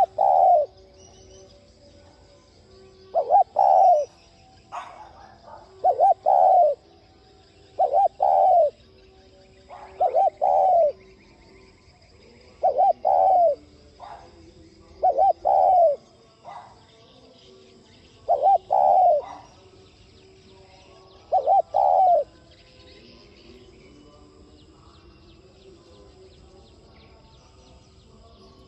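Spotted dove singing: a short phrase of two or three quick coos, repeated about every two and a half seconds, nine times, then stopping well before the end.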